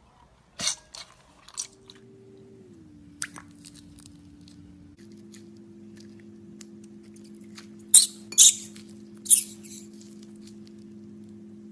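Slime-filled stress balls being cut, giving short crackly, squelchy bursts: a few lighter ones early, then three louder ones close together near the end. Underneath runs a soft held low drone that shifts pitch twice.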